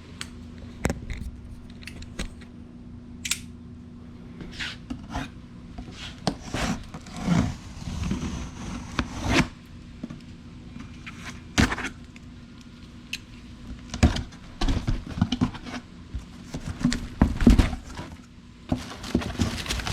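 A shipping box being opened and unpacked by hand: irregular clicks, scrapes and rustles of cardboard and packing material.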